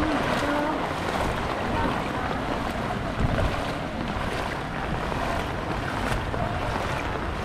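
Floodwater sloshing and splashing around the legs of someone wading through it, with wind rumbling on the microphone.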